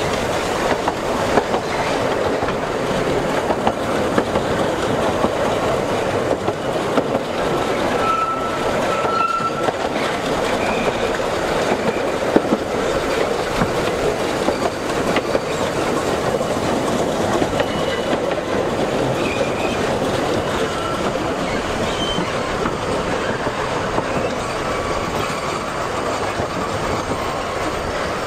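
Narrow-gauge steam train rolling along the track, heard from a carriage: a steady rumble and clatter of wheels on rails, with brief high wheel squeals on curves, the clearest about a third of the way in and a few shorter ones later.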